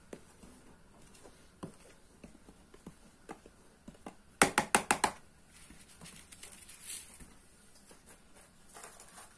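A hand stirring dry flour in a bowl, with faint soft rustles and light taps, then a quick run of about five sharp knocks a little under halfway through.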